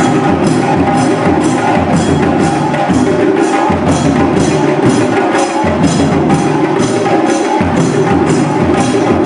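Percussion-driven music with a steady beat of about two sharp strokes a second over a continuous low bass part.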